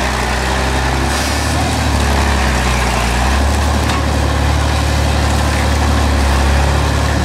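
A heavy engine idling steadily, a deep low running sound that grows a little louder about three and a half seconds in.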